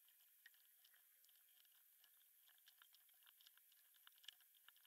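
Faint, irregular small clicks and rustles of jumper wires being pushed into a solderless breadboard by hand, with one slightly louder click about four seconds in.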